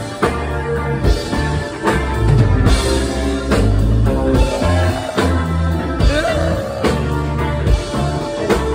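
Live rock band playing loud, with electric guitars, bass and a steady drum-kit beat, and a voice singing over it.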